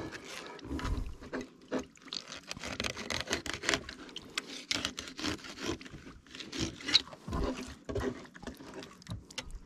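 Fillet knife cutting along a kokanee's spine and scraping and tapping against the fillet board, heard as irregular clicks, scrapes and wet handling noises. There are a couple of dull low thumps.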